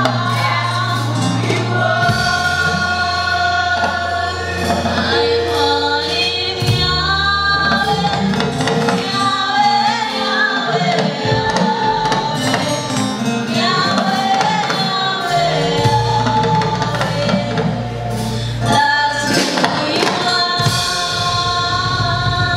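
Gospel choir singing in harmony, backed by a live band of keyboards and drum kit, with long held low bass notes under the voices.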